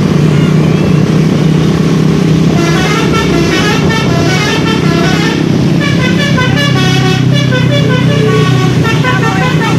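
Tour bus's multi-tone 'telolet' horn playing a quick tune of short notes, starting about two and a half seconds in. A steady engine drone from the vehicles runs underneath.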